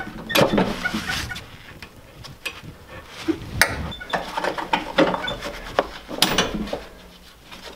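Scattered small metallic clicks and clinks of a wire bow-tie pin and the mower-deck hitch hardware being worked loose by a gloved hand, with rustling of the glove between them; the sharpest clicks come a little past halfway and again near the end.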